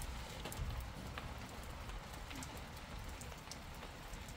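Rain falling steadily on wet ground, with scattered sharp drip ticks and a low rumble underneath.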